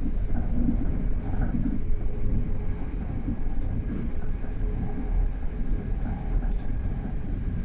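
Passenger train running at speed, heard from inside the carriage: a steady rumble of wheels on the track.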